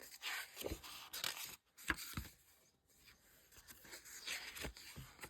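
Paper rustling as glossy photobook pages are turned and handled, with a few soft taps and knocks of the book and its card inclusions.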